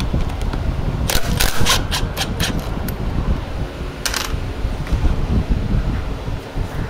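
A quick run of light metallic clicks and clinks, about seven or eight in a second and a half, then one more a couple of seconds later: small metal tools or brake parts being handled. A steady low rumble runs underneath.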